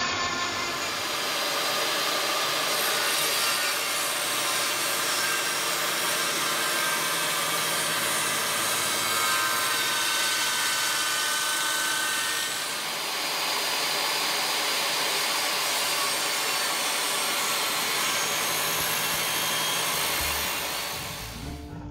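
Table saw running and cutting through an upright block of reclaimed oak beam clamped to a sled: a steady hiss of the blade in the wood. The sound changes in character about halfway through and fades out at the end.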